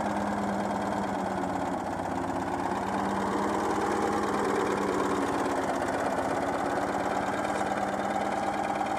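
Citroën 2CV's air-cooled flat-twin engine idling steadily while still cold. The idle is set a little high with a lean mixture, and the owner finds it slightly unstable.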